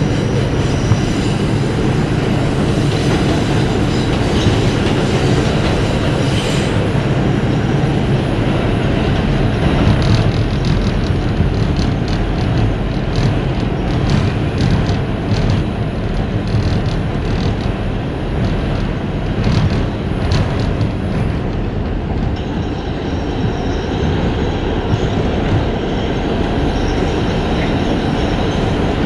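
R142 subway train running at speed through the tunnel, heard from inside the car: a steady rumble of wheels on rail, with a run of rapid clicks over rail joints from about ten to twenty seconds in.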